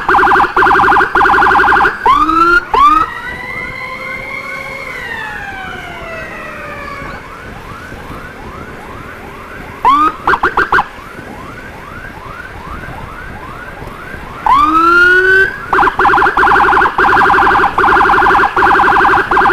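Electronic emergency sirens of an ambulance and its escort: a loud, fast warble, then rising whoops, then a fainter quickly repeating yelp with a long falling wail over it, a short loud burst about halfway, and the loud fast warble again from about three-quarters of the way in.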